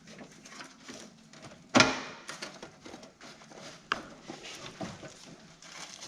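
Hands working parts under a car: one sharp knock a little under two seconds in, then lighter clicks and scraping of the clutch master cylinder and its line being worked down past the body.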